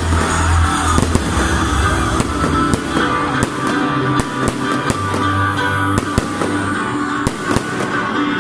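Aerial fireworks bursting in irregular sharp bangs and crackles, over loud music played alongside the display.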